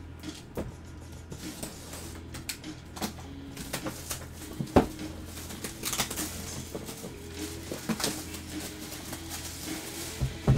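Cardboard shipping box being opened by hand: packing tape pulled, flaps and lid handled, and an inner box slid out, giving a string of crinkles and sharp clicks with one louder knock about halfway through. Background music underneath.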